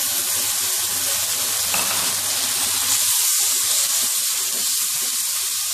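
Chicken and freshly added tomato paste frying in hot oil in a karahi: a steady sizzling hiss.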